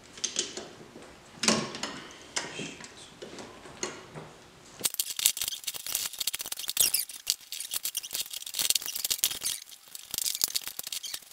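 Steel gears and shift forks of a six-speed manual transmission clinking and rattling against each other and the case as they are wiggled into place. About halfway through the clicks become much denser and faster.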